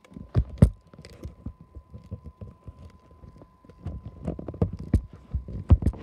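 Storm wind gusting against the phone's microphone: irregular low thumps and rumbles, loudest in clusters at the start and again from about four seconds in.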